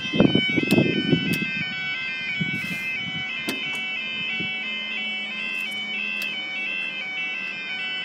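UK level-crossing warning alarm sounding: a continuous yodel of high tones stepping back and forth between pitches. Low rustling from handling is heard in the first second or so, and a few sharp clicks come through the alarm.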